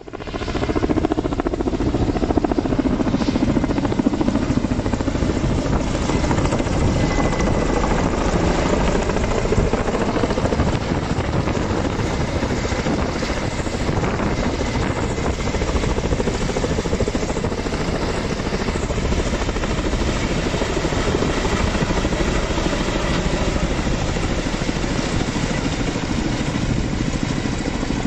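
Firefighting helicopter's rotor beating steadily, loud throughout.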